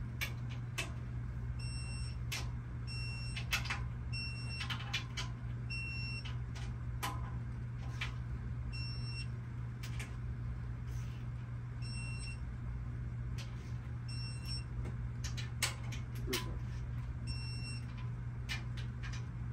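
Torque wrench tightening oil pan bolts on a Ford 7.3L Godzilla engine: scattered sharp clicks, with runs of short high-pitched beeps about once a second, over a steady low hum.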